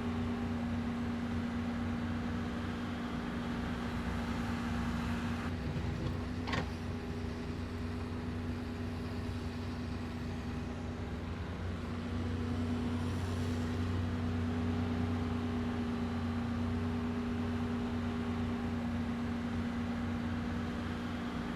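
Steady urban traffic rumble with a constant low engine-like hum, and a single brief click about six and a half seconds in.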